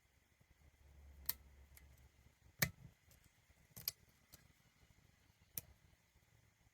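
Scattered sharp metallic clicks of a lock pick working the pins of a hand-held pin-tumbler challenge lock, about five in all, with a low handling rumble in the first two seconds.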